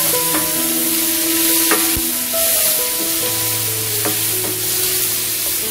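Sliced onion and green bell pepper sizzling in butter in a nonstick frying pan as they are sautéed, stirred with a wooden spatula that clicks against the pan a few times.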